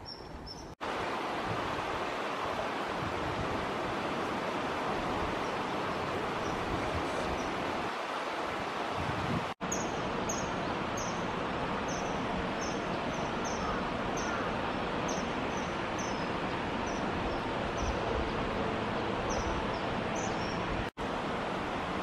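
Steady rush of flowing stream water. Through the second half it is joined by a string of short, high bird chirps, about two a second.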